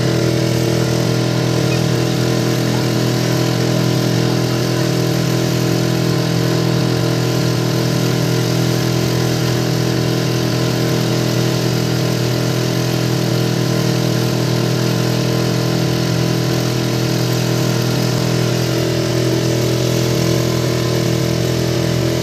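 Motorboat engine running at a steady speed: an even, unchanging drone with a steady hiss over it.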